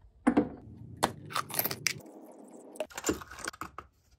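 Workshop handling noise: a quick series of knocks and clinks of metal tools and parts, with a stretch of scraping about two seconds in.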